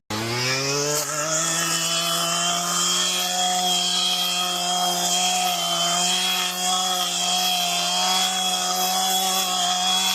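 Small gasoline engine revving up over about a second, then running steadily at a constant speed.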